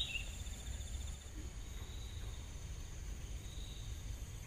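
Insects chirping in a steady high-pitched drone, with a low rumble underneath and a brief chirp at the very start.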